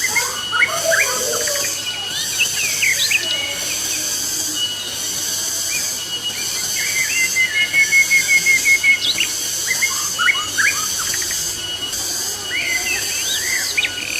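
Small birds chirping in short calls and glides, with a quick trill of about ten notes near the middle, over the steady rushing hiss of the paludarium's waterfall.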